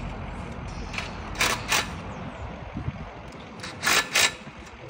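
Chain-link gate hardware being fitted, giving two pairs of short metal clinks, one pair about a second and a half in and another near the end, over a steady low background rumble.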